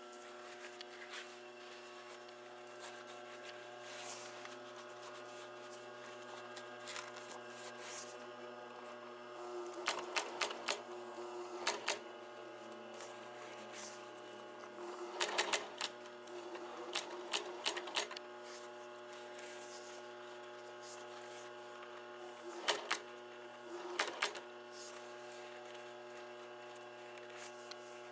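Industrial sewing machine stitching in several short runs with pauses between, its needle and feed clattering rapidly over a steady motor hum.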